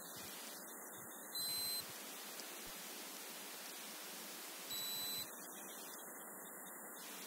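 Two short, high electronic beeps about three seconds apart, over a steady hiss.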